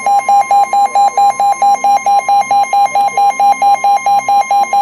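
Emergency Alert System attention tone: a loud steady high tone with a lower tone pulsing about five times a second over it, signalling that a severe thunderstorm warning is about to be broadcast.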